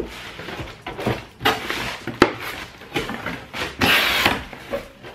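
Cardboard shipping box being cut open with a knife and its flaps pulled back: scraping and rustling with several sharp taps, and a longer tearing sound about four seconds in.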